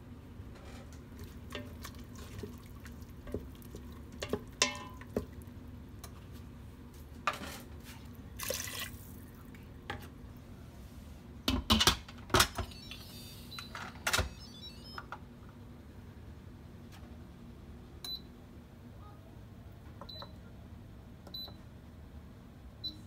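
Kitchen handling of an Instant Pot over a steady low hum: water poured into the inner pot, then the lid set on and turned to lock with several loud clanks about halfway through, followed by four short high beeps from the Instant Pot's control panel as the cooking time is set.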